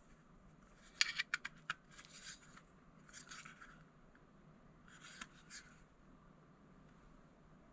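Faint handling noises from the USB-C docking hub being moved about on a hard surface: a quick run of small clicks about a second in, then several soft scrapes.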